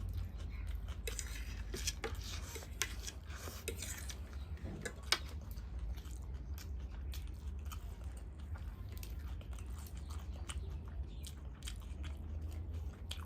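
A person chewing and biting food, with many small clicks from the mouth, busiest in the first few seconds and with one sharper click about five seconds in, over a steady low hum.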